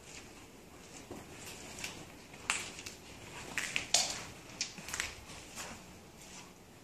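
Footsteps and scuffs on a hard concrete floor: a run of irregular sharp steps and knocks, busiest around the middle.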